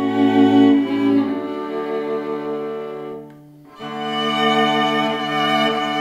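String quartet of two violins, viola and cello playing a slow hymn in sustained bowed chords. A little past halfway the chord fades into a brief pause between phrases, then all four parts come back in together.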